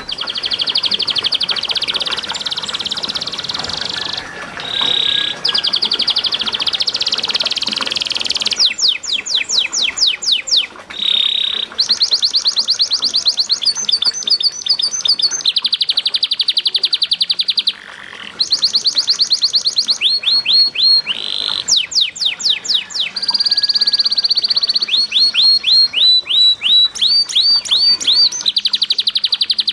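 Domestic canary singing a long, unbroken song of fast trills and rolls, switching from one phrase to the next every second or two, with runs of repeated rising sweeps. There is a brief pause about two-thirds of the way through.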